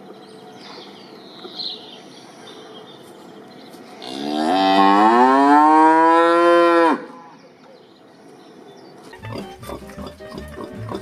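A cow mooing: one long moo of about three seconds that rises in pitch at the start, holds, then cuts off sharply. Background music with a steady beat starts near the end.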